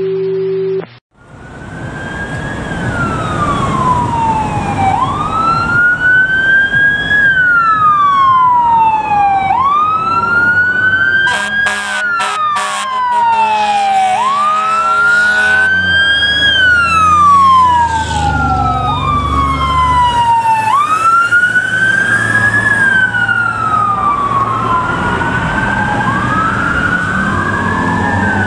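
Fire apparatus sirens wailing, each cycle a quick rise and slower fall about every three seconds. Around the middle, an air horn blasts in short bursts and is then held, over diesel engine rumble. Later, two sirens overlap out of step. It opens with the last second of a steady tone before the sirens start.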